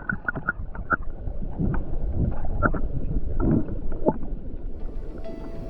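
Natural spring water bubbling up and gurgling, with irregular small pops over a low rumble. Music comes in near the end.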